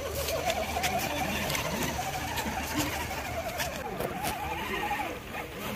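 Electric motor and gears of a radio-controlled scale crawler (SCX10-type chassis) whining, the pitch rising and falling as the throttle is worked, with scattered small clicks.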